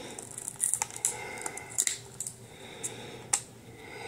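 A small plastic water bottle crackling in the hand as its screw cap is twisted open, with a series of sharp clicks as the cap's seal breaks.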